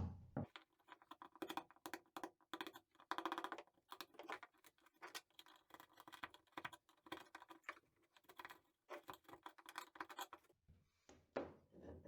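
Quiet, rapid scratching and rasping strokes of a hand tool working through cured fibreglass and epoxy to reopen a limber hole in a boat's floor framing. The strokes come in short bursts, pausing about ten and a half seconds in, with a few more near the end.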